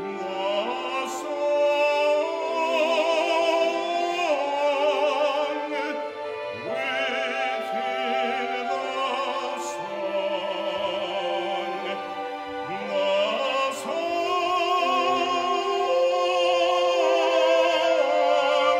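Symphony orchestra playing, with a baritone soloist singing over it with a wide vibrato; the music swells louder about two seconds in and again in the last few seconds.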